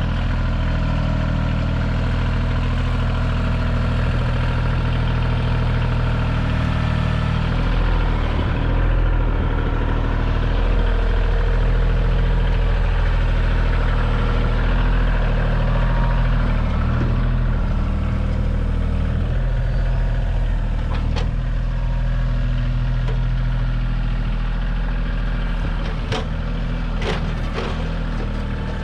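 Kioti tractor's diesel engine running steadily while the backhoe digs, with a few sharp knocks near the end.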